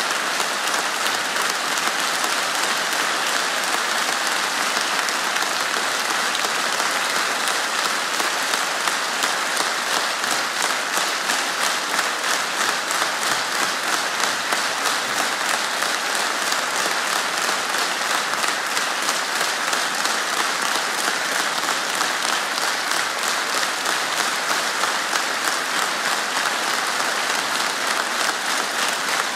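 Large theatre audience applauding, the clapping falling into a steady beat in unison about eight seconds in.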